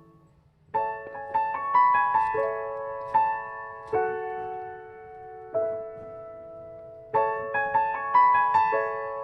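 Background music: a soft piano melody of struck notes that ring and fade, the phrase starting over near the end.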